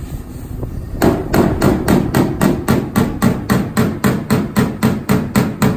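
Hammer tapping a steel pickup-truck body panel in quick, even strikes, about four a second, starting about a second in. The metal is being worked down along a crease while the dent is pulled out with welded-on wiggle wire, spreading the metal out so the panel doesn't cave in again.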